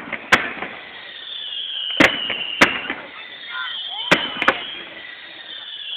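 Aerial fireworks display: about five sharp shell bursts, under a high, slowly falling whistle from the pyrotechnics.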